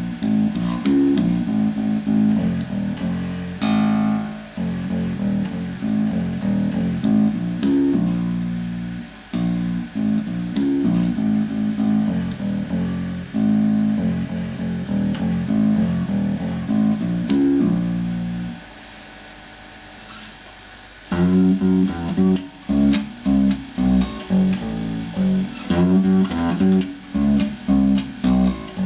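Electric bass guitar played as a melodic line of sustained notes, stopping for about two seconds about two-thirds of the way through, then coming back in with short, separately plucked notes.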